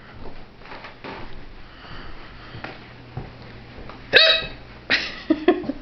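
A woman hiccuping: one sudden, sharp hiccup about four seconds in, followed by another short burst about a second later.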